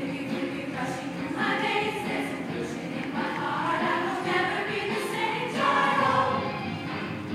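A large girls' choir singing.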